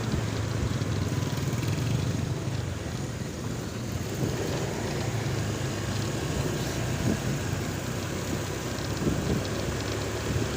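Steady low rumble of a running vehicle, with wind noise on the microphone.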